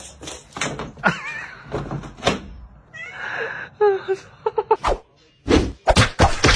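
Knocks and clatter from a cat scrambling on a wooden floor and against a chair, with a few short, wavering high cries. Music with a quick beat starts near the end.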